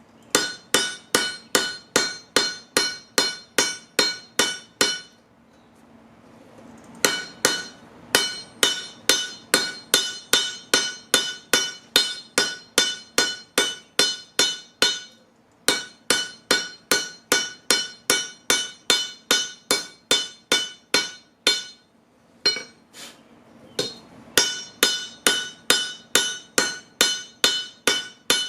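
Hammer blows on a railroad-track anvil, about three a second in a steady rhythm, each strike ringing with a bright metallic tone. The hammering stops briefly three times, for about two seconds after the first few seconds and again late on.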